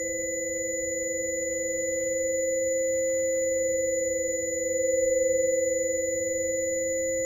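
Sustained electronic sine-wave tones from an electroacoustic improvisation: several steady pitches held together as a drone, swelling slightly in loudness about five seconds in.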